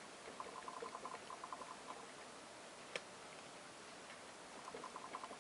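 A desk lamp rattling in quick light ticks, about six a second, shaken by a sponge being pounced through a stencil. The ticks come in two runs, with a pause between them and one sharp click about three seconds in.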